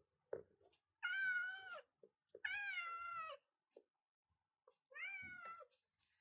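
Cat meowing three times, long drawn-out meows about a second each, the last one falling in pitch at its end.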